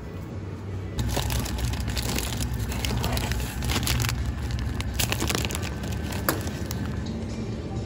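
Plastic bag of frozen fries crinkling and rustling as it is handled and put into a plastic shopping basket, starting about a second in, with many sharp crackles, over a steady low hum.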